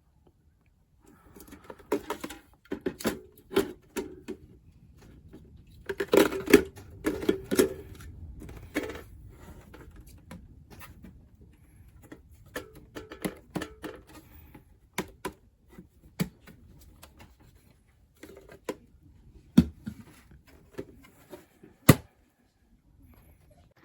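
Irregular clicking and clattering of small hard objects being handled, in clusters with pauses, and a couple of sharper single knocks near the end.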